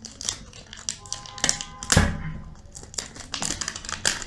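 Plastic shrink-wrap on a phone box being slit with a knife and torn off, the film crinkling and crackling in a string of small clicks. A short squeal sounds from about one to two seconds in, and a single thump, the loudest sound, comes about two seconds in.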